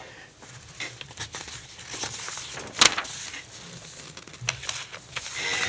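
Faint rustling and scattered clicks of handling noise at a table microphone, with one sharper click about three seconds in.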